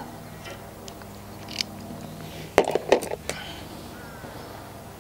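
Knife trimming the tail end of bowstring serving thread, with a small click and then a short cluster of sharp clicks and scrapes from handling about two and a half seconds in, over a low steady hum.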